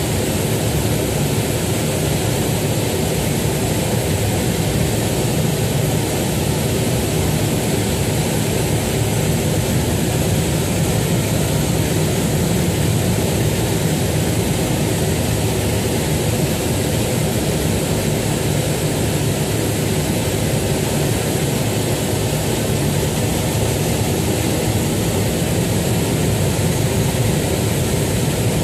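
Small propeller aircraft's engine running with a steady, loud drone that holds level throughout.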